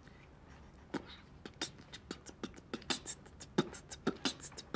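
A person beatboxing: a rhythm of sharp, short mouth-made beats that starts about a second in and keeps going, a few beats a second.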